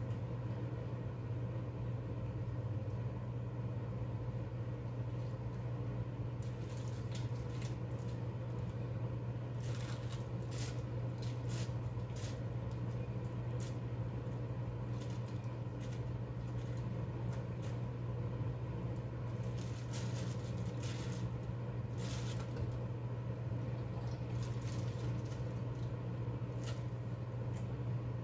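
A steady low hum, with scattered small clicks and wet squelching handling noises from about six seconds in as raw beef intestine is worked by hand over a stick to turn it inside out.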